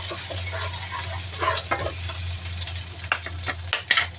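Garlic sizzling in hot oil in a pan while a utensil stirs it, scraping and clicking against the pan, with two sharper clicks near the end.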